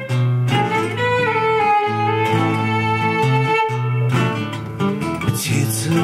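Acoustic guitar and violin playing an instrumental passage together: the violin carries held melody notes over the guitar's chord accompaniment and low bass notes.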